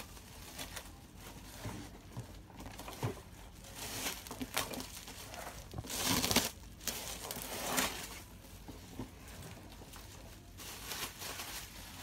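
Clear plastic wrapping crinkling and rustling as it is pulled off a cardboard box, in irregular bursts, loudest about six seconds in, with a few light knocks of the box.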